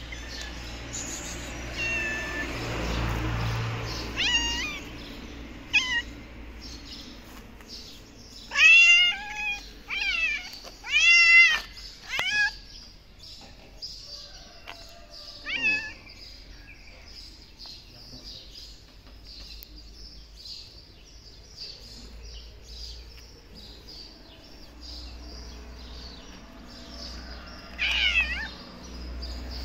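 Black stray cat meowing over and over, with a run of loud meows about nine to twelve seconds in and another near the end; the uploader takes her for very hungry and thin.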